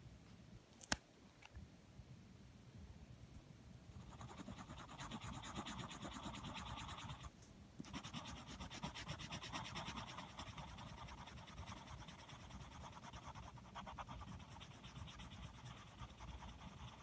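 Pencil scribbling on paper, shading in rapid back-and-forth strokes that start about four seconds in and pause briefly just past the middle. A single sharp click about a second in.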